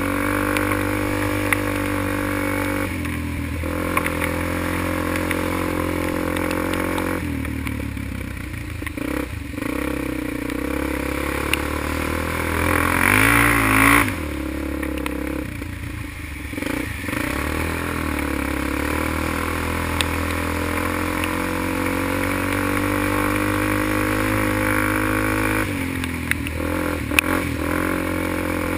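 ATV engine running under throttle while riding a rough trail, the revs easing off and picking up again, climbing to the loudest rev about 13 seconds in. Scattered clatter and knocks from the machine over the bumps.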